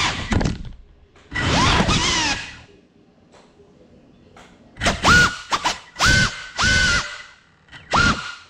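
GEPRC CineLog35 cinewhoop's brushless motors spinning up in short bursts while the drone rests on the floor. There is one burst about a second and a half in and a quick run of five near the end. Each whines quickly up in pitch, holds, then cuts off.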